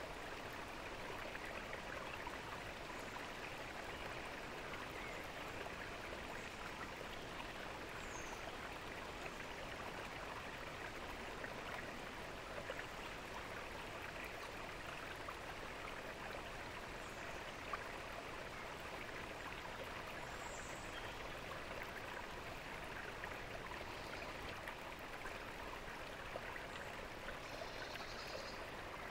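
Fountain water splashing and trickling steadily, a continuous even rush of falling water. A few faint high chirps come through now and then.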